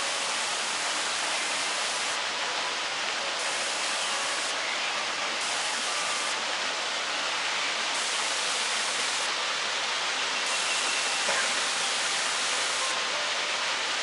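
Steady rushing of a small waterfall: an even hiss of falling water that does not change.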